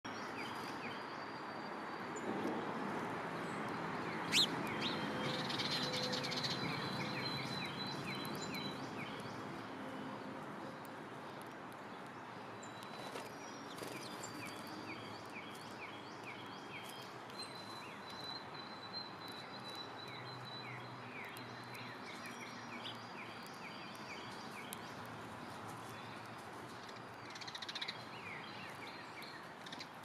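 Small songbirds chirping and singing in a run of short repeated chirps and higher held whistled notes, over a steady background hiss. A single sharp click about four seconds in is the loudest sound.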